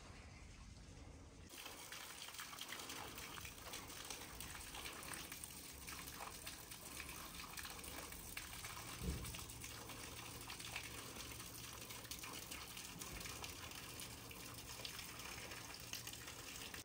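Running water: a steady, faint rush that starts suddenly about a second and a half in. There is a single brief thump about nine seconds in.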